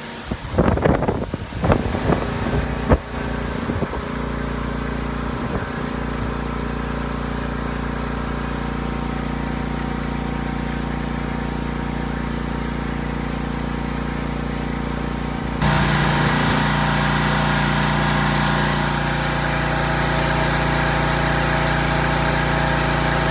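Gusts of wind buffeting the microphone for the first few seconds, then a steady machine hum at a fixed pitch. About two-thirds of the way in it cuts abruptly to a louder, brighter steady hum.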